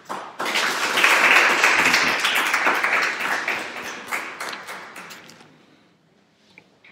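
A small audience applauding: the clapping rises quickly, then thins and fades out over about five seconds.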